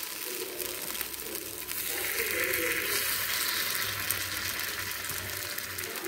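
Batter sizzling in hot oil in the wells of a paniyaram pan, with a louder burst of sizzling about two seconds in as another spoonful of batter goes into a well.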